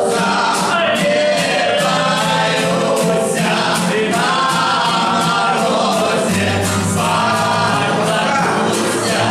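A group of men singing a Russian song together in chorus, accompanied by several strummed acoustic guitars in a steady rhythm.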